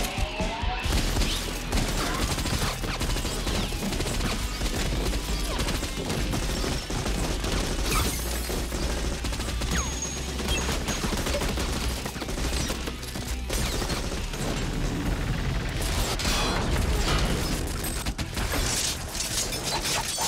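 Film gunfight sound: continuous rapid gunfire from handguns and automatic rifles, with bullets striking stone walls.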